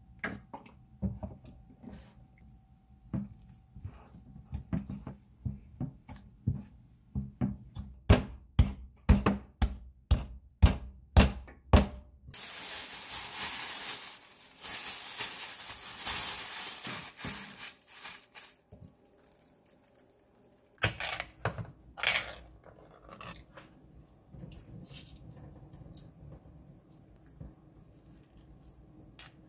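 Dough kneaded by hand in a glass bowl, thudding against the bowl in a run of beats that quicken to about two a second. Then a plastic bag rustles loudly for several seconds as the dough goes into it, and a couple of sharp knocks follow.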